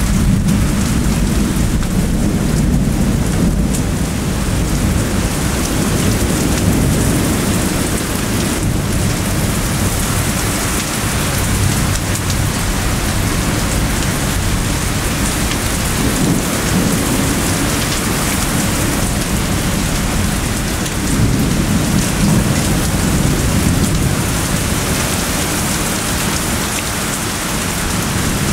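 Thunderstorm: rain falls steadily while thunder rolls in low rumbles that swell near the start and again about three quarters of the way through.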